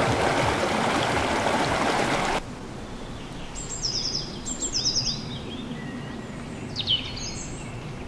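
Waterfall rushing into a pool, cutting off abruptly about two and a half seconds in. A bird then calls over quieter background: quick runs of high descending chirps between about three and a half and five seconds in, and one more call near seven seconds.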